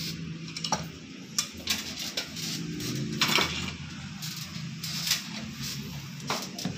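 Plastic clicks and knocks of a Kolin wall-mounted air conditioner indoor unit being taken apart by hand, a handful of sharp clicks scattered through, the loudest about three seconds in, over a low steady hum.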